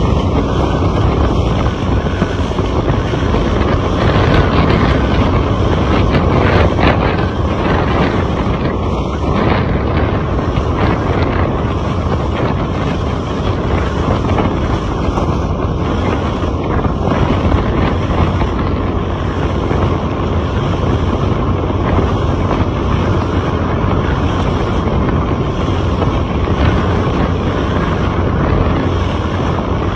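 Steady running noise of a vehicle on the move, with wind buffeting the microphone.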